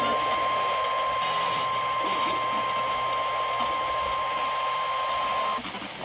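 NOAA Weather Radio warning alarm tone: one long, steady, high beep over static, coming through a Midland GXT handheld radio's small speaker. It cuts off abruptly just before the end. The tone signals that a warning, here a severe thunderstorm warning, is about to be read.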